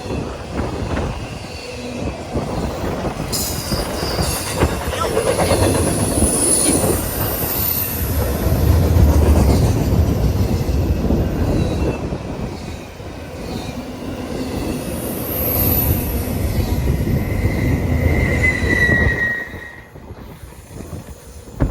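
Short freight train rolling past with a steady rumble, its wheels squealing now and then. The rumble falls away suddenly near the end as the last car goes by.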